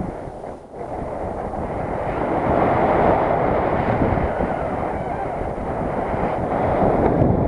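Wind rushing over the microphone of a camera on a paraglider in flight: a steady rumbling noise that drops briefly under a second in, then swells and eases a few times.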